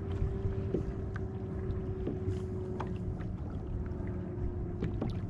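A kayak moving over open sea: water washing against the plastic hull, with a steady hum underneath and a few light ticks.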